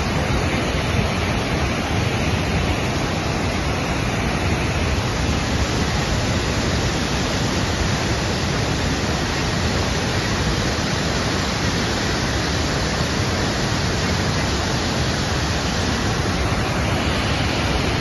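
Wide, multi-tiered waterfall pouring over rock ledges into a pool: a steady, even rush of falling water.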